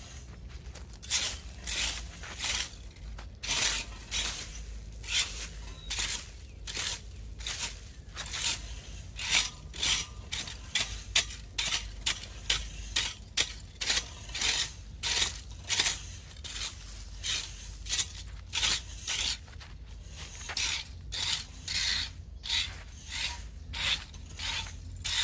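Small hand rake scraping and sweeping dry leaves across concrete and a metal storm drain grate, in quick rhythmic strokes of about one and a half a second.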